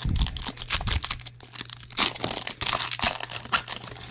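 Foil wrapper of a trading-card pack being torn open and crinkled in the hands: a dense run of quick, irregular crackles and rustles.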